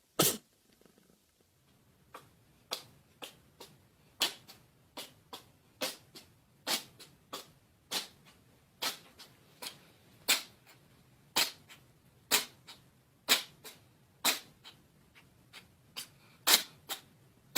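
A long, irregular run of short, sharp snaps, about two a second, the loudest one at the very start and another near the end.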